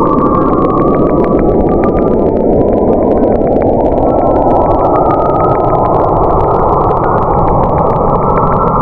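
Sound recording presented as coming from Mars: a steady, dense mechanical rumble and grind, with a faint wavering tone riding above it and fine crackling clicks.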